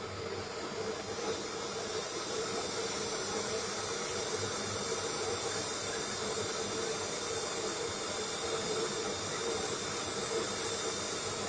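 LY40 ring inner engraving machine running: a steady hissing machine noise with a constant hum and faint high whine.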